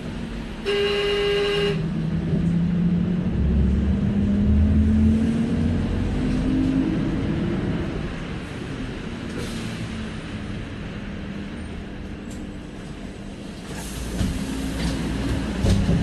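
Heard from inside a city minibus: the engine pulls away, its drone rising steadily in pitch over several seconds before settling, over a steady rumble of road noise. A horn sounds once for about a second near the start.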